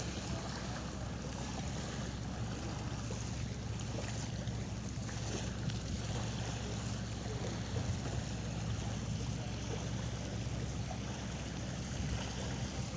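Steady seaside ambience: surf and wind buffeting the microphone, with a constant low rumble.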